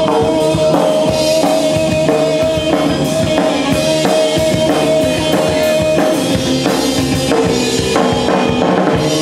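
Live surf-punk band playing an instrumental stretch: a driving drum-kit beat with electric guitar and bass. One long held note rings over the beat and drops in pitch about seven seconds in.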